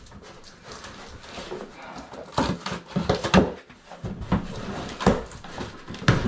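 A cardboard box being opened by hand: flaps pulled back and crumpled packing paper rustling, with irregular scrapes and knocks of cardboard.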